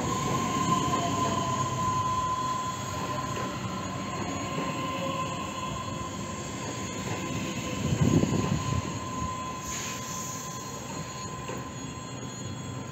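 Ivolga EG2Tv electric multiple unit rolling slowly past the platform, its traction drive whining with a falling pitch as it slows, over a steady high squeal. About eight seconds in there is a louder rumble.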